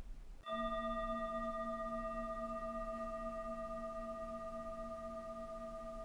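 A single struck, bell-like chime starts about half a second in and rings on with several overtones, fading slowly.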